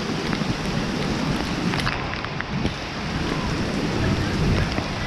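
Steady rain falling, with wind buffeting the microphone in a low rumble and scattered sharp ticks through it.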